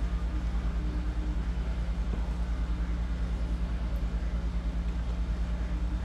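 Steady low hum with a fast, even flutter.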